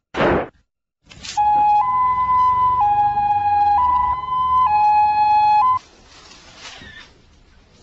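Police vehicle siren sounding a two-tone hi-lo wail, switching between a lower and a higher pitch about once a second, then cutting off. A short loud thump comes just before it at the very start.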